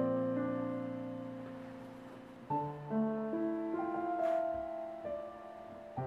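Background piano music: sustained chords that fade slowly, with a new chord struck about two and a half seconds in.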